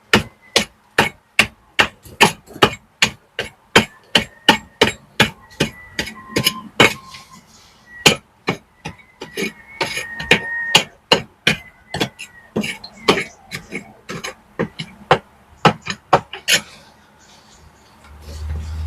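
Hammer striking steadily, about two to three sharp blows a second, stopping about two seconds before the end. A low rumble follows.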